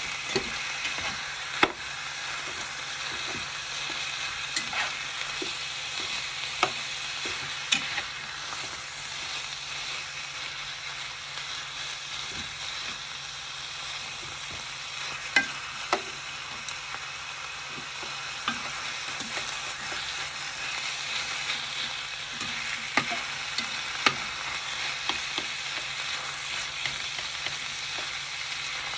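Ground beef and diced vegetables sizzling steadily in a frying pan while being stirred, with scattered sharp clicks and scrapes of a spatula and chopsticks against the pan.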